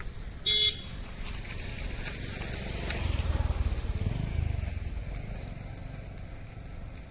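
A motor vehicle passing by: a low engine rumble swells to its loudest in the middle and fades away, with a short horn beep about half a second in.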